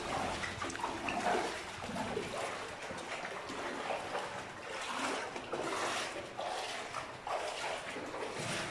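Wellington-booted footsteps splashing and sloshing through shallow standing water, with irregular strokes a little over one a second.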